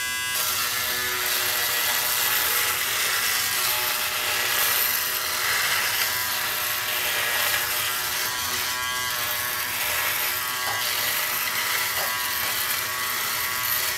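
Remington Wetech PF7580 electric foil shaver running steadily with its stubble guard removed, its motor buzz mixed with the noise of the foil head cutting whiskers as it is moved over the jaw and neck.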